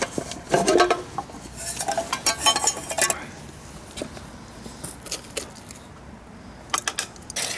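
A metal spoon clinking and scraping against a metal cooking pot as minced meat is dished out, in bursts of quick clinks during the first three seconds and again near the end.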